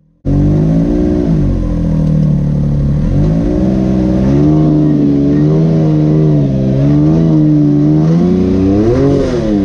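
Side-by-side UTV engine heard from inside the cab, revving up and down as the machine works its way up a steep, loose rock ledge. The sound cuts in suddenly just after the start.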